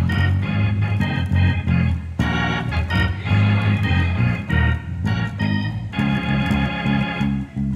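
Hammond console organ played gospel-style: full chords on the keyboards over a strong bass line, held chords alternating with short, repeated stabbed chords.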